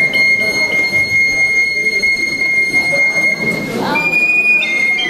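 Small high-pitched folk flute holding one long, steady, shrill note for about three and a half seconds, then a brief slightly higher note and a return to the first.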